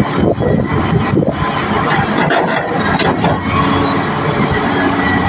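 Kobelco SK380XD excavator's diesel engine running under load as the machine dumps a bucket of soil into a dump truck. A few short clanks and knocks about two to three and a half seconds in.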